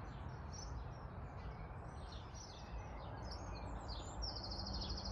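Garden birds singing and chirping over a steady low outdoor rush, with one bird's fast, even trill starting near the end.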